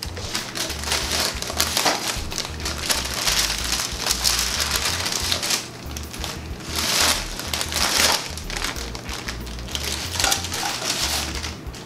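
A sheet of parchment paper crinkling and rustling as it is handled, lifted and tipped to slide baked cookies onto a plate: a continuous run of crackles with several louder rustles.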